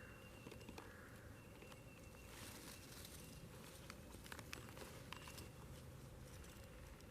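Near silence: faint outdoor ambience with scattered small clicks and a few faint, thin high tones that come and go.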